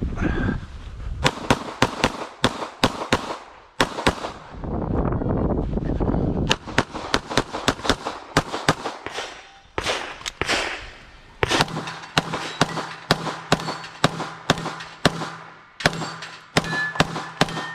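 Glock pistol firing a long stage string: rapid shots, many in quick pairs, broken by short pauses between groups of targets.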